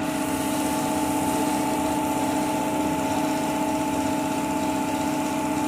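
A machine running steadily: an even drone with a few fixed tones that does not change.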